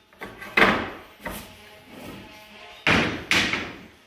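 Oak tongue-and-groove flooring planks clattering as they are sorted by length and set down on a pile, four sharp wooden knocks with a short ring, the loudest about half a second in and twice near three seconds.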